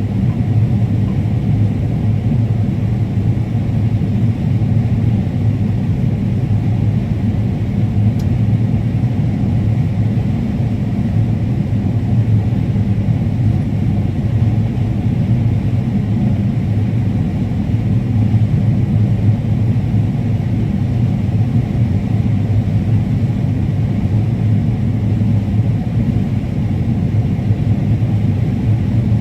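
Combine harvester running steadily while harvesting corn: an even, unbroken low rumble.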